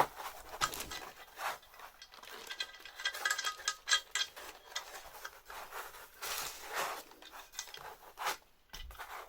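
Hands handling and putting away a metal mount and its parts and packaging: scattered clicks, rustles and light clinks, one with a brief faint ring about three seconds in.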